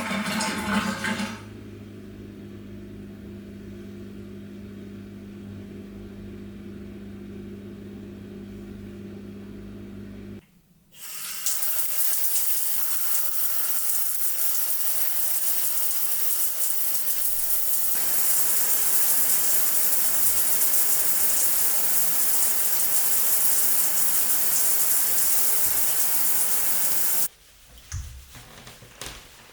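A steady electrical hum with a low drone is heard for about ten seconds and then cuts off. Next comes a loud, steady rush of running water, like a tap or shower at full flow, which stops abruptly near the end. A few light clicks follow.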